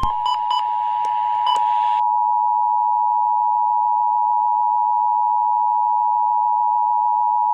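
Emergency Alert System attention signal, the steady two-tone alert sound that heralds a warning broadcast. It is preceded for about two seconds by a noisy burst with a tone and a few clicks, then holds unbroken.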